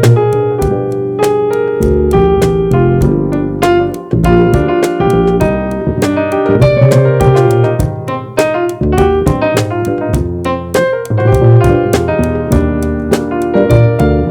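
Jazz trio playing a tune, with a keyboard in an electric piano tone leading over bass notes and drums. The drums keep time with frequent light strikes.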